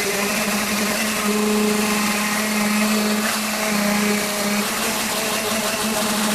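An electric motor, most likely a power tool, runs steadily with a constant-pitched hum over a loud, hissing rush.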